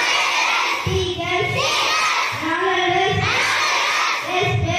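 A group of children singing together in chorus, with long held notes that bend in pitch.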